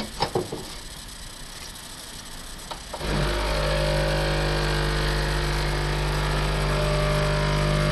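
Capsule coffee machine's pump starting about three seconds in and running with a steady loud hum as it brews a coffee, after a couple of small clicks.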